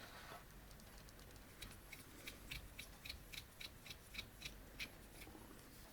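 Faint, quick little clicks, about three a second, from a tiny screwdriver turning a small screw out of a Casio watch.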